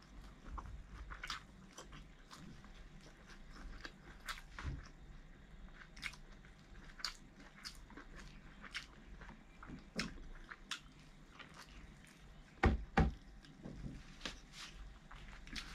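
A person chewing and biting into air-fried barbecue duck close to the microphone, with many small scattered clicks. Two heavy thumps come close together about three quarters of the way through.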